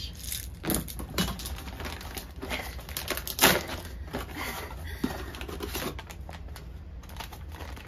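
Hands rummaging through a cardboard box of packaging: a run of rustling, crinkling paper and small plastic clicks, with one sharper knock about three and a half seconds in.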